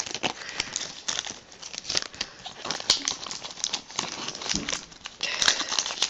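Foil booster-pack wrapper crinkling as it is handled, an irregular run of crackles.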